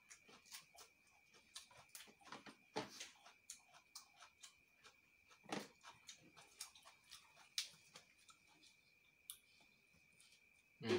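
Faint, irregular crackles and mouth clicks of crisp lettuce leaves being torn by hand and chewed, over a steady faint high-pitched whine.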